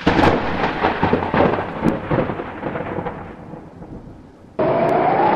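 Thunder rolling and crackling with a string of sharp cracks, fading away over about four seconds. About four and a half seconds in, a different sound cuts in abruptly, carrying a steady tone that rises slightly.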